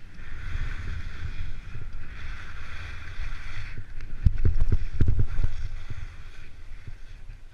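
Wind buffeting a GoPro camera's microphone during a fast ski descent, a steady low rumble, with skis hissing and scraping over the snow in stretches. A cluster of sharp thumps comes about four to five and a half seconds in.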